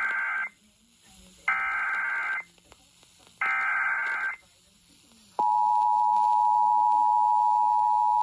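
Emergency Alert System SAME header: three one-second digital data bursts a second apart, the first already under way; they encode the alert, here a flash flood warning. About five seconds in, the steady two-tone EAS attention signal starts and holds.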